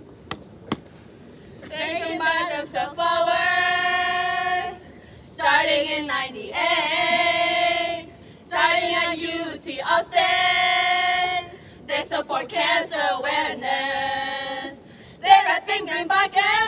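Group of women singing a chant together in unison, starting about two seconds in, in about five phrases of held notes with short breaks between.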